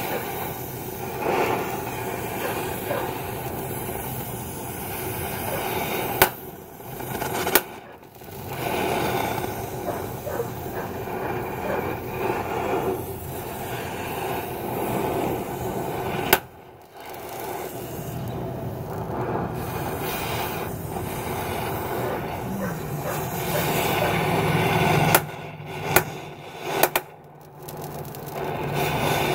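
Oxy-acetylene cutting torch hissing steadily as it melts through a seized steel nut on a broken shock bolt. A few sharp clicks break in, each with a brief dip in the hiss.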